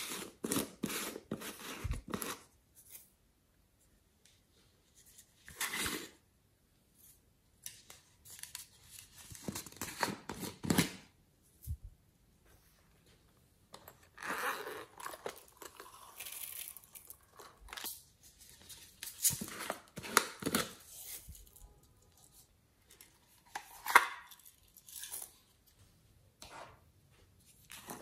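Small plastic animal-shaped toy containers being handled and opened by hand: intermittent bursts of rustling, scraping and tearing-like sounds, each lasting a second or few, with quiet gaps between.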